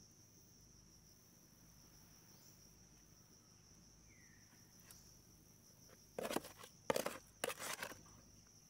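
Crickets trilling steadily in a high, even band. About six to eight seconds in come three short bursts of rustling, the loudest sounds here.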